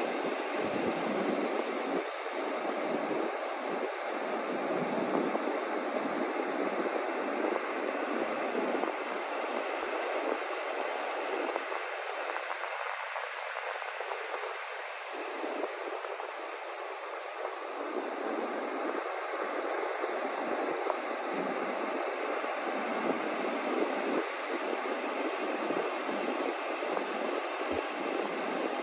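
Ocean surf breaking and washing on a beach: a steady rushing that swells and eases slowly.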